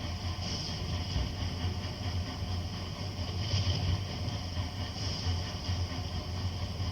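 FA1 diesel locomotive's engine running steadily, a constant low hum with a hiss above it.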